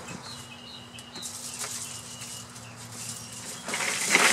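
A few faint, short bird chirps, then a loud rustling swish near the end.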